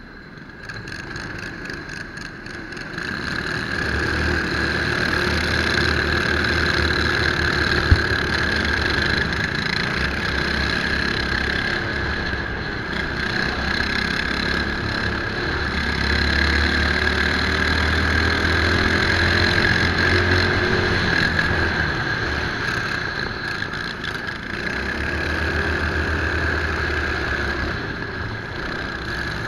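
Racing kart engine heard from onboard at race speed, picking up over the first few seconds, then running hard with its revs rising and falling through the corners. There is one sharp knock about eight seconds in.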